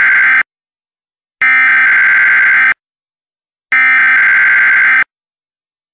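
Emergency Alert System SAME header: three bursts of digital data tones, each about a second and a quarter long with a second's pause between, the first already under way as it begins.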